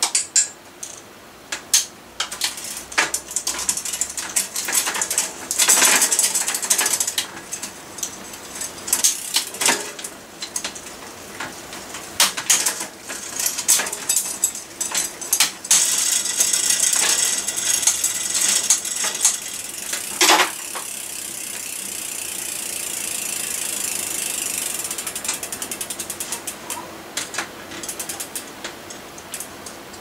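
Mountain bike drivetrain being worked by hand: the rear freewheel ratcheting and the chain and gears clicking as the cranks and rear wheel are turned, with scattered sharp clicks, ending in a run of evenly spaced ticks that slows down.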